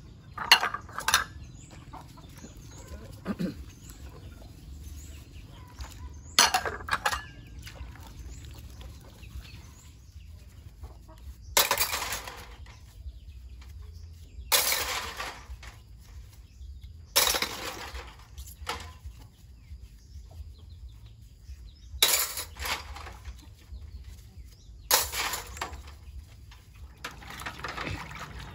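Chickens clucking, with short noisy bursts every few seconds.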